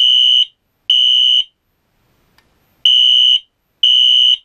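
Wheelock NS fire alarm horn sounding a loud, steady, high-pitched electronic tone in half-second beeps, grouped in threes with a pause of about a second and a half between groups: the temporal-three (code 3) evacuation pattern. The last two beeps of one group are followed by the first two of the next.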